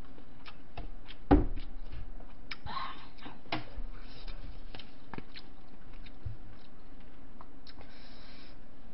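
Tableware and eating noises: a bowl set down on the table with a knock about a second and a half in, then scattered light clicks of chopsticks against bowls and a paper cup, with short spells of eating noise.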